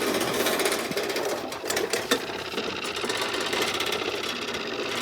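John Deere riding lawnmower engine running steadily with a fast, even chatter, blades disengaged. A few short clicks sound about two seconds in.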